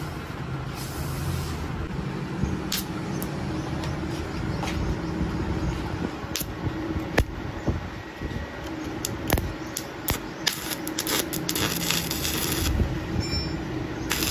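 Steady machine hum with scattered sharp clicks and ticks, coming thicker over the last few seconds as a stick-welding electrode is struck against a CV joint shaft on a lathe; the arc catches right at the end with a crackling hiss.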